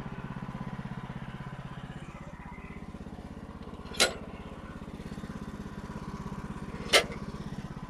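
Sawmill engine running steadily, with two sharp knocks, one about halfway through and one near the end.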